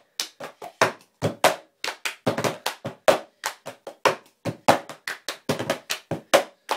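Cup game: hand claps mixed with a cup being tapped and knocked on a tabletop in a quick, steady rhythm of about four strikes a second.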